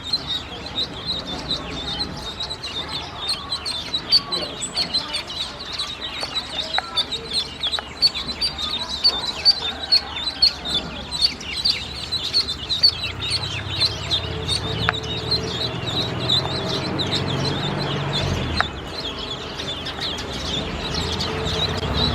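Ducklings peeping, a dense run of rapid, high-pitched chirps. A low hum runs underneath through the second half.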